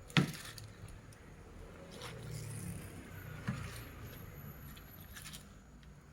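Kitchen handling noises while cooking: a sharp knock about a quarter second in, then a few lighter clicks with rustling in between.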